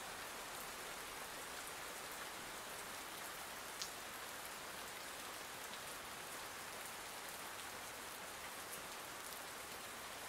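Steady, faint rain falling, an even patter with no change in strength, and one small tick about four seconds in.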